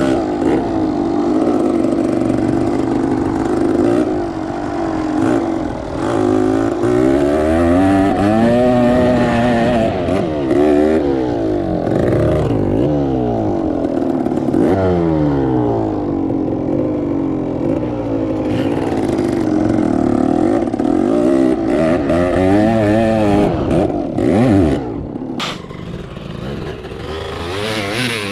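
Several engines revving, their pitches repeatedly rising and falling and crossing one another.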